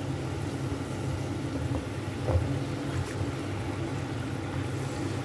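Steady low hum of a running kitchen appliance, with a few soft taps and scrapes of a spatula stirring chicken in tomato sauce in a nonstick frying pan.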